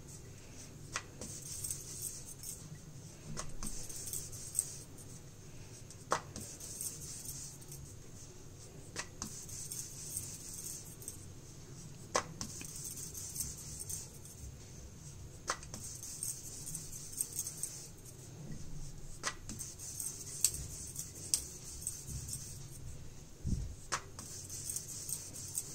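Wooden rolling pin rolling out a stuffed paratha on a marble rolling board: soft rolling and rubbing sounds, with a sharp click every few seconds.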